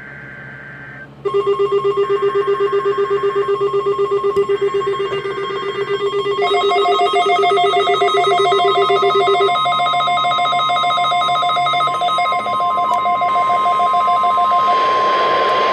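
NOAA Weather Radio weekly test alert: three short bursts of warbling digital alert-header data, then the steady 1050 Hz weather radio warning alarm tone under loud, pulsing receiver alarm beeps. A second pulsing beep joins about six seconds in, the first stops about halfway through, and near the end the beeps cut off and a hiss of static rises.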